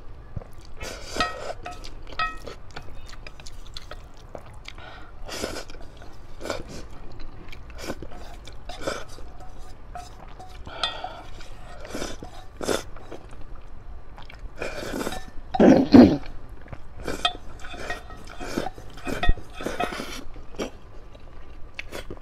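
Close-up slurping and chewing of spicy instant noodles, in irregular bursts, with the longest, loudest slurp about two-thirds of the way through. Chopsticks clink now and then against the metal bowl.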